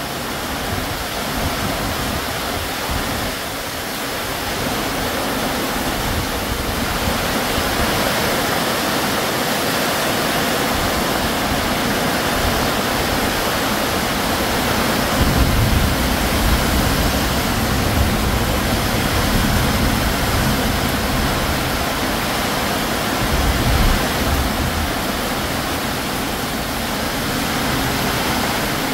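Heavy tropical downpour with strong wind, heard from under a corrugated metal porch roof: a loud, steady rush of rain. Gusts of wind buffet the microphone with low rumbles, strongest about halfway through and again a few seconds before the end.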